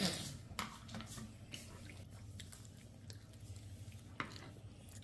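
A small child eating soup with a spoon: faint wet mouth and chewing sounds, with a few small clicks of the spoon, the clearest about four seconds in as it scoops in the bowl.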